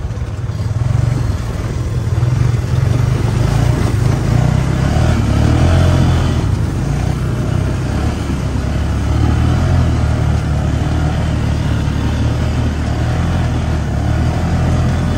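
Dune buggy engine running while being driven, a loud, low, steady drone.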